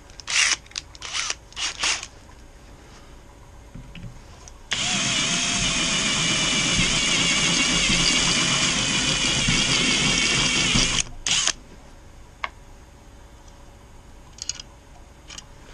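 Cordless drill running a step bit to enlarge a hole in an aluminum engine valve cover. A few short bursts come first, then a steady run of about six seconds with the pitch wavering slightly as the bit cuts, and one more brief burst after it stops.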